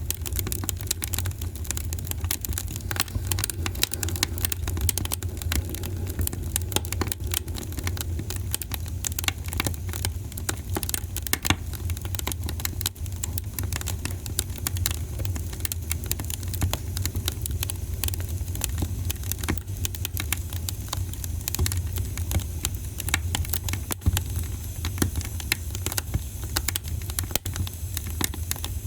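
Wood fire in a fireplace crackling, with dense irregular pops and snaps over a steady low rumble.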